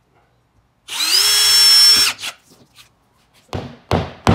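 A cordless drill runs for about a second, its motor whine rising and then holding steady as it bores a hole into the wall. Near the end a claw hammer taps the wall three times in quick succession.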